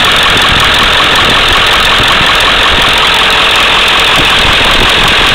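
Ford 7.3-litre Powerstroke turbo-diesel V8 idling steadily, heard close up under the open hood.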